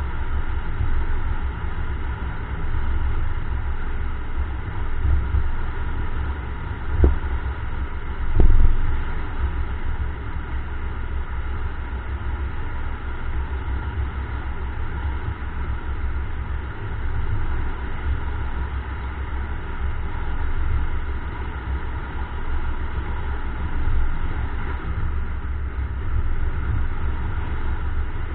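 Low wind rumble and road noise of a moving car, picked up by an action camera mounted on the outside of the car. Two brief knocks stand out about a quarter of the way in, a second and a half apart.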